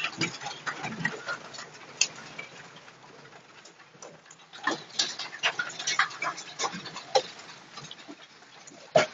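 Hail falling on a shed roof, a tarpaulin and the yard: a steady hiss of hailstones with irregular sharp clicks and knocks from larger stones striking, the hardest one near the end.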